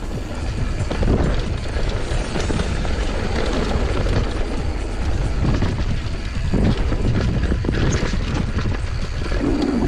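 Mountain bike rolling fast down a dirt trail: a continuous rumble of tyres on dirt, with frequent short knocks and rattles from the bike over bumps.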